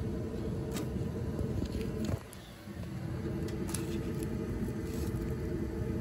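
Gas furnace running with a steady motor hum and rumble, which dips briefly about two seconds in; a few light clicks over it.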